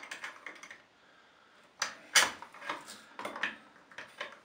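Small clicks and knocks of a plastic shower-rail wall bracket and its screw being worked against the wall while the screw is lined up with its existing hole. There is a cluster of clicks at first, a short pause, then the loudest click about two seconds in and a string of smaller ones.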